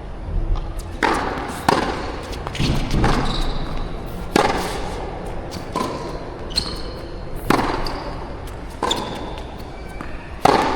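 Tennis rally: sharp strikes of racket on ball and ball bounces on the court, one roughly every second and a half, over a low wind rumble on the microphone.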